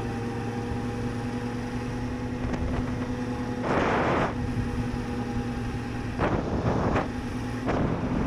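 Motorcycle engine running at a steady cruising speed, a constant hum, with short bursts of wind noise on the microphone about four, six and a half and eight seconds in.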